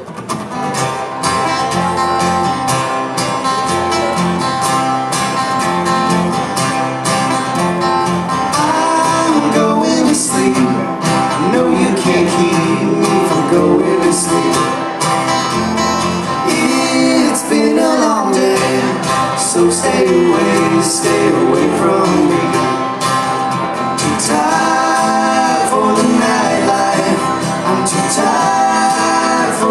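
Live acoustic trio of three acoustic guitars strumming a country-folk song, with a man's voice singing from about nine seconds in.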